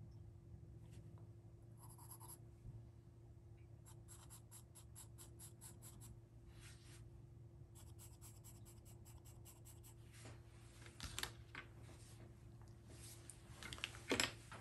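Pencil drawing on paper: faint, scratchy strokes in quick runs of about five a second, with a louder knock near the end.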